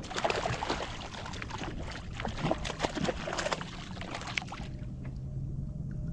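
Hooked seatrout thrashing at the water's surface beside a kayak, a run of irregular splashes and sloshing that stops after about four and a half seconds.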